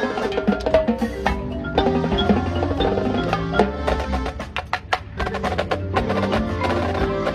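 Drum and bugle corps playing its show: front-ensemble mallet percussion and drums striking over held pitched chords, easing to a softer passage about two-thirds of the way through before building again.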